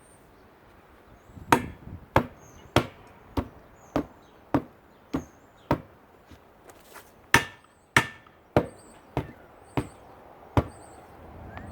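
About fifteen heavy, evenly spaced blows, roughly one every 0.6 seconds, struck against a tire on its aluminum rim.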